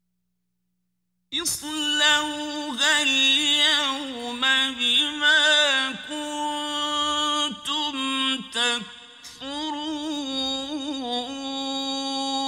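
A man reciting the Quran in a melodic tajweed chant. After about a second of silence, he sings one long phrase of Arabic with held notes and quick ornamented turns in pitch.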